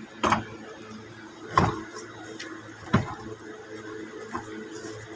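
Three sharp knocks a little over a second apart, then a fainter one near the end, over a steady low hum.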